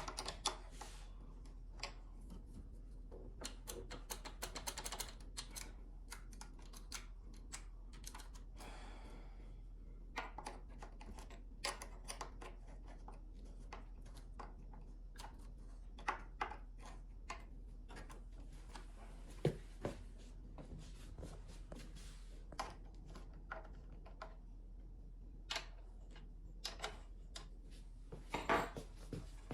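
Irregular light clicks, taps and a short scrape from hands and tools working on a new chainsaw's chain and guide bar while the too-tight chain is being adjusted.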